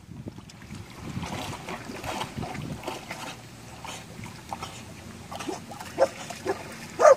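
Water sloshing and splashing as a dog wades in and swims, with wind on the microphone. Near the end a dog gives a few short barks, the last the loudest.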